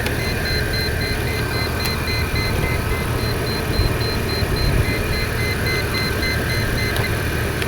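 2002 Toyota Land Cruiser engine idling steadily, overlaid with a fast, even run of high electronic beeps that stops about seven seconds in.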